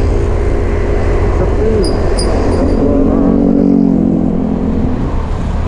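Motorcycle engine running steadily while riding, heard from the bike itself, over a heavy low wind rumble on the microphone. A few brief high chirps come about two seconds in.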